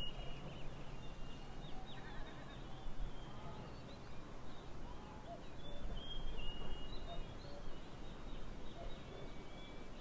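Birds calling and chirping, with short high whistled notes scattered throughout and a brief trill about two seconds in, over a steady low outdoor background.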